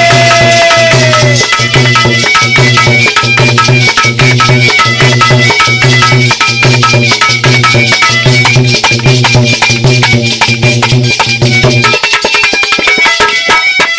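Indian folk music accompaniment of dholak drum and harmonium, with a steady low beat of about two strokes a second under quick, clicking percussion. A held note slides down and ends in the first second or so, and the low drum beat stops about two seconds before the end.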